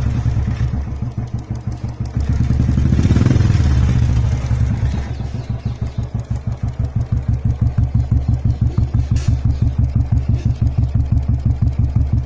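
Royal Enfield motorcycle exhaust through an aftermarket Dolphin silencer: the engine is revved once about two seconds in, drops back, and settles into an idle with an even, rapid beat of exhaust pulses.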